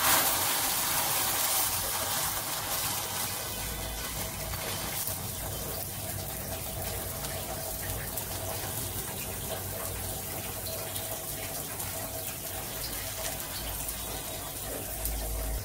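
Ghee sizzling on a hot tawa under a paneer paratha as it is spread over the top with a spoon: a steady hiss, loudest in the first couple of seconds.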